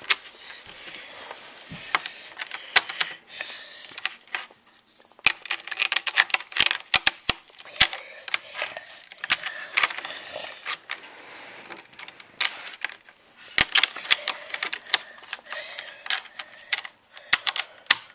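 Lego bricks being handled and pressed onto a plastic baseplate: many irregular, sharp plastic clicks and clatter.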